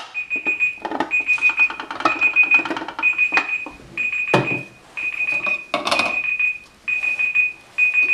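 Digital darkroom timer alarm going off: a high-pitched beeping that comes in short groups of rapid beeps, repeating a little more than once a second, signalling the end of the developer step. A few knocks and clatter come in between.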